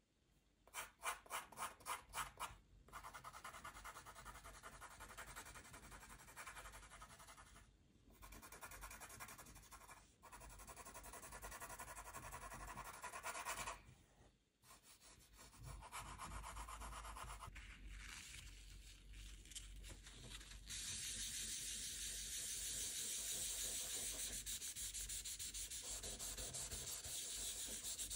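Pencil on paper: a run of quick, short strokes about a second in, then continuous shading rubbed across the paper, broken by brief pauses and turning steadier and hissier in the last third.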